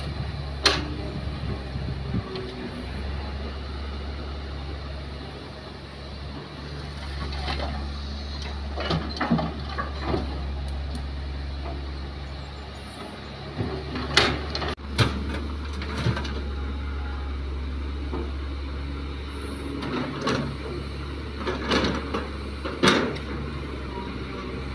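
Kobelco hydraulic excavator's diesel engine running with a steady low drone while it loads soil into a dump truck, with sharp knocks and clatters of the steel bucket and of dirt and rocks landing in the truck's steel bed several times, loudest about a second in and around fourteen seconds in.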